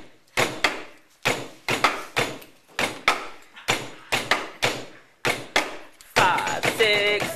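Fists pounding a beat on a tabletop: quick knocks in short groups of two or three, repeating about once a second. Voices start singing about six seconds in.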